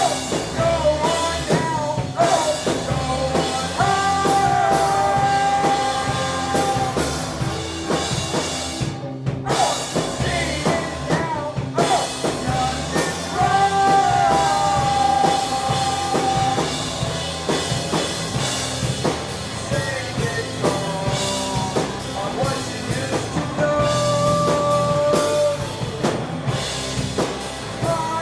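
Live indie rock band playing, with a drum kit keeping the beat under a sung melody of long held notes that slide between pitches.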